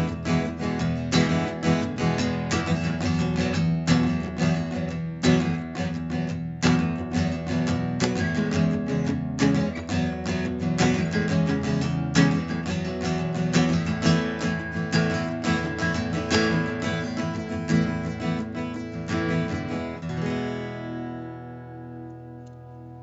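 Instrumental background music with strummed acoustic guitar, ending on a chord that rings out and fades over the last few seconds.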